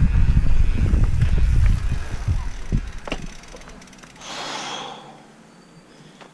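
Mountain bike rolling down a dirt trail: loud low rumble of wind on the helmet-camera microphone and tyres over the ground, with knocks and rattles from the bike, fading as it slows. About four seconds in, a brief hiss, then it goes quieter.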